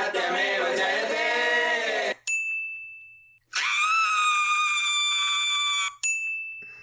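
About two seconds of a voice, then a bright bell-like ding that rings away, then a woman's high, held scream of about two and a half seconds. A second ding rings out near the end.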